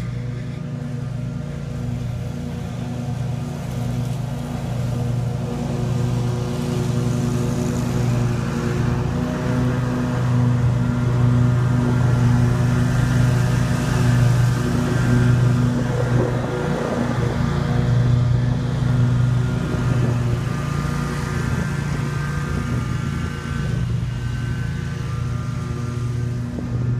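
An engine running steadily at an unchanging pitch, a little louder in the middle.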